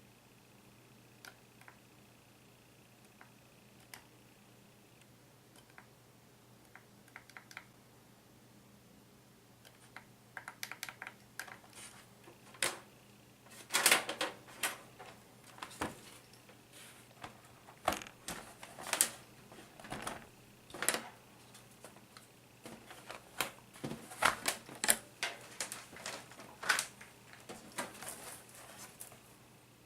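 Irregular clicks and knocks from an Acer E5-411 laptop being handled and taken apart. They are sparse at first, then come thicker and louder from about a third of the way in.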